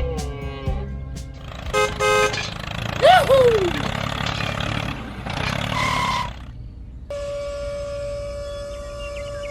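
A string of short sound effects over a low rumble: a quick double horn-like beep about two seconds in, a falling whistle glide just after, then a long steady horn-like tone held from about seven seconds in.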